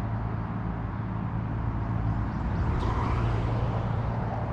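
Steady low rumble and hiss of outdoor background noise with a constant low hum, and a faint short high sound about three seconds in.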